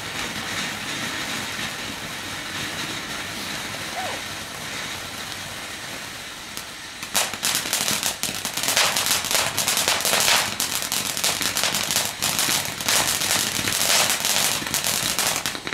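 Garden firework fountain spraying sparks with a steady hiss. About seven seconds in, it breaks into loud, rapid crackling, which drops away at the very end.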